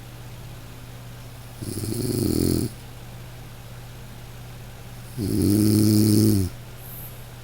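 A person snoring: two long, low snores about three and a half seconds apart, each lasting about a second, with a faint steady low hum between them.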